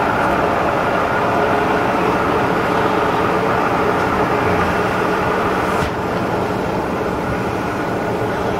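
Sharp VH3 milling machine running under power, with its main motor and table-feed gearing making a steady mechanical whir that carries several gear tones. About six seconds in there is a click and the level drops slightly as the feed changes.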